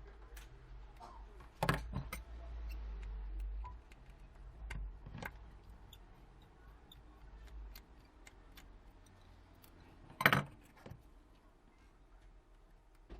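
Scattered small clicks and taps of tools and tiny parts being handled while a smartphone is taken apart, with two louder knocks, one about two seconds in and one about ten seconds in.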